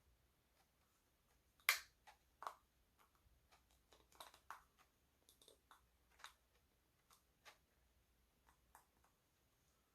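Scattered small clicks and taps of hard plastic being handled as a toy Grogu baby pod is worked at to open it, the sharpest click about two seconds in.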